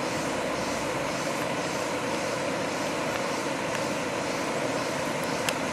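River water rushing steadily over shallow rock ledges and small cascades.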